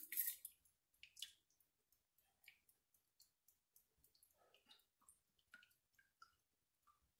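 Near silence with faint, irregular drips of carrot juice falling from a mesh strainer into a stainless-steel bowl of juice.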